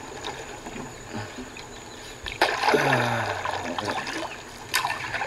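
Wooden canoe paddle strokes in water, splashing and dripping: a sharp stroke about two and a half seconds in and another near the end, with a brief falling low tone just after the first.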